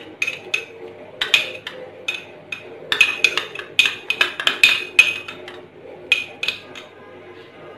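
A spoon clinking and tapping against a metal pressure cooker pot: an irregular run of quick, sharp clinks with a short ring, stopping near the end.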